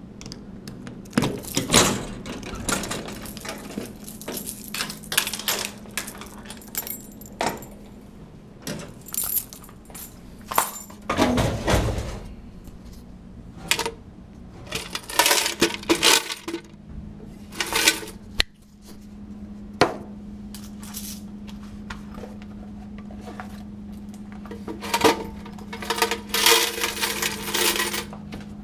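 Quarters from a coin-only vending machine's coin box clinking and jingling as they are handled and poured out, in irregular bursts with a thicker run of clinking near the end. A steady low hum runs underneath.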